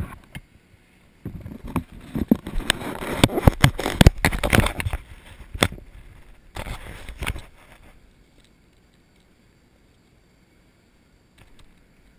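Fingers rubbing and tapping on a GoPro's housing and lens: a run of close, loud scraping and sharp knocks that dies away about two-thirds of the way in.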